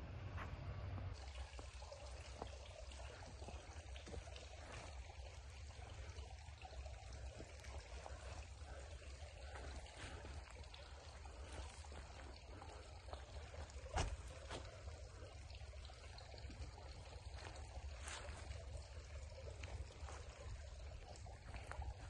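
Water trickling and splashing steadily, over a low rumble, with one sharp click a little past the middle.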